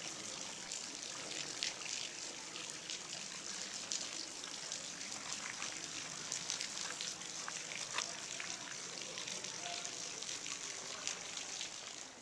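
Small waterfall splashing steadily into a rock pool, with many sharp drips of water falling from the rock ledge above.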